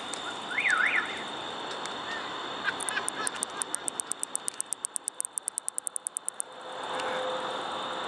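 California angle-winged katydid (Microcentrum californicum) calling: a fast run of sharp, dry ticks, about nine a second, starting about three seconds in and stopping after three and a half seconds. About half a second in, a short, louder up-and-down warbling sound, over a steady background hum.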